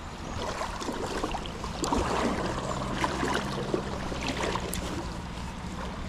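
Shallow river water rushing and splashing around a wader's legs while wading upstream through a stream.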